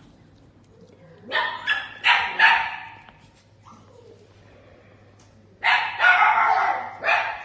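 Small dog barking in two quick runs of short barks, one starting about a second in and another near the end.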